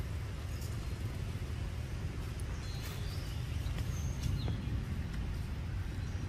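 Steady low outdoor rumble, with a few faint high chirps and light clicks about halfway through.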